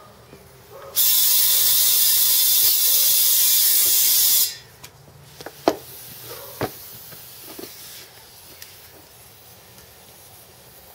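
Compressed air from an air compressor's tank rushing through a hose chuck into a small turf tire to push its beads back onto the rim: a loud, steady hiss for about three and a half seconds that cuts off suddenly. A couple of sharp clicks follow.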